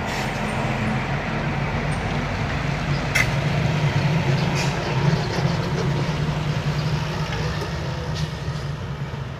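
Diesel engine of a Mitsubishi Fuso truck running as it drives slowly past, a little louder around the middle and fading toward the end, with one short click about three seconds in.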